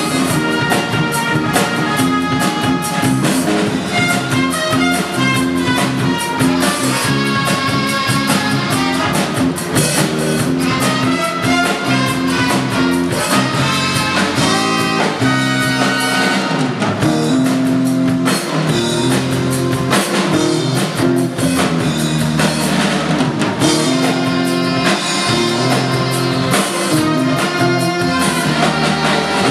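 Instrumental music with a steady beat.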